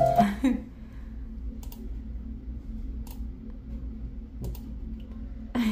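Music playing through the computer's speakers cuts off about half a second in as the speaker device is disabled. This leaves a low steady hum and a few scattered soft computer mouse clicks.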